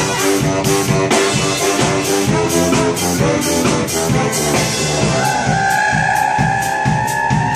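Brass band playing live: saxophone, trombone, sousaphone and trumpet over a drum kit keeping a fast, steady beat. About five seconds in, a horn holds one long high note.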